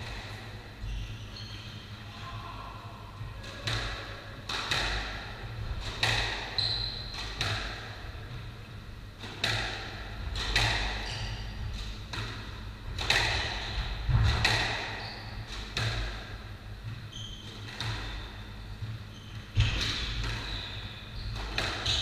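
Squash rally in a court: the ball cracks off rackets and walls roughly once a second, with shoes squeaking on the wooden floor.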